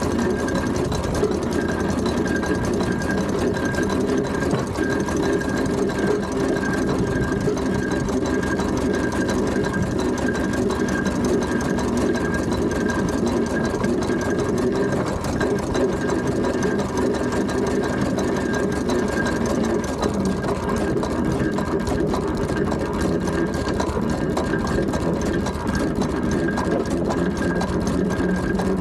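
Steam traction engine under way along the road: a steady, fast mechanical clatter of the running engine and gearing, with an evenly pulsing high note over it. The lower running note drops a little about two-thirds of the way through.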